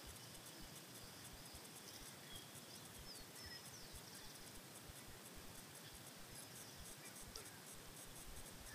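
Near silence in bushland: a faint steady hiss with a few short, high chirps of small birds scattered through it.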